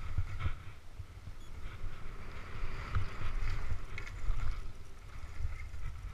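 Skis swishing and scraping through snow in repeated turns, with wind rumbling on the microphone and a few sharp knocks.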